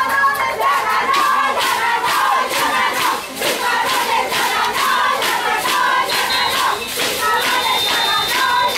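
A group of voices chanting together over steady rhythmic claps. A thin, high, steady tone sounds briefly about six seconds in and again near the end.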